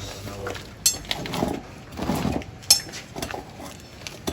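Metal tools clinking twice, about two seconds apart, with rustling handling sounds between, as tyre-repair tools are handled.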